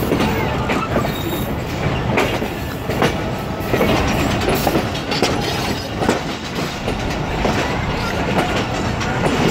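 Passenger coach wheels and bogie clattering over rail joints and switches as the train crosses from track to track, with irregular sharp clanks over a steady rumble.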